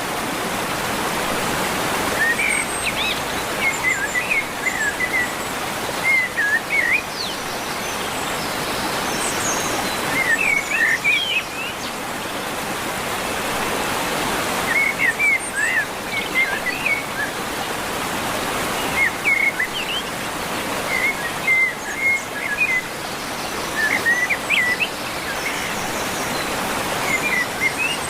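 Small birds chirping in short clustered phrases every few seconds over a steady rushing noise.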